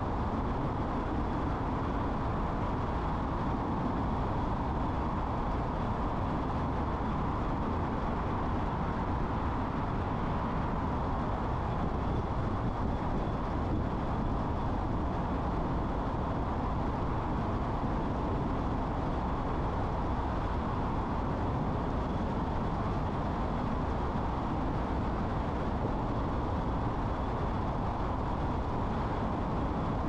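Steady road noise of a car driving at a constant pace: tyre and engine noise without change, with a faint steady high tone above it.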